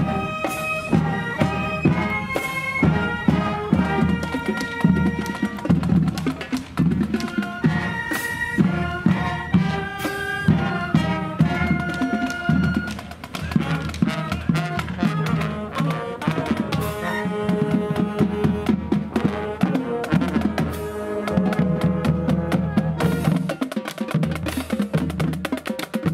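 Marching band playing on the march: saxophones, clarinets and brass carry the tune over bass drums and cymbals. The drums come more to the fore near the end.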